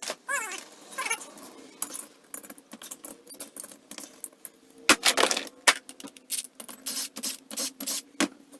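Metal tools and parts clinking and knocking, a run of irregular sharp clicks, over a faint steady hum.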